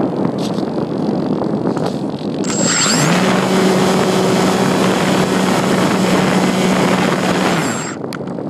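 Wind rushing past the RC glider's onboard microphone. About two and a half seconds in, the glider's motor and propeller spin up with a short rising whine, run steadily for about five seconds, then cut off suddenly near the end.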